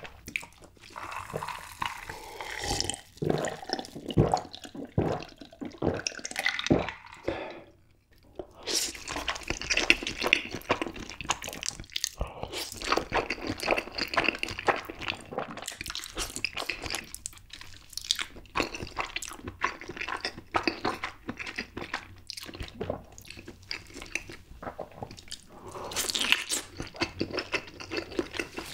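Close-miked eating sounds: slurping and chewing spicy stir-fried Buldak noodles, wet mouth smacks and clicks, with a short lull about eight seconds in.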